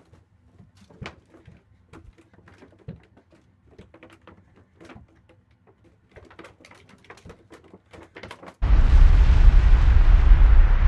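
Scattered faint taps and clicks, then, about eight and a half seconds in, a sudden loud explosion with a deep rumble that keeps going.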